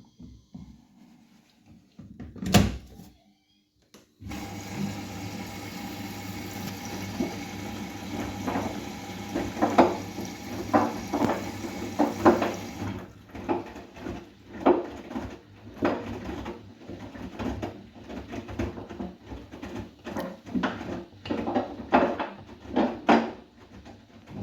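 Bosch WGA252Z0TR washing machine starting a wash: one sharp click, then water rushing in from about four seconds in and stopping about halfway, while the laundry tumbles and sloshes in the turning drum in uneven thumps.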